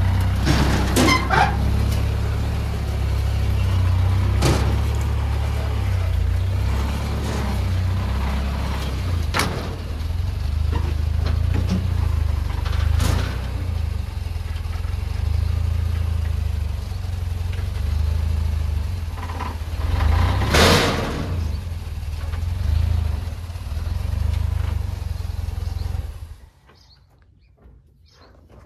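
Toyota rock crawler's engine running with a low, steady drone under load as the rig crawls up the ramps onto a trailer, with several sharp clunks along the way. The engine shuts off near the end.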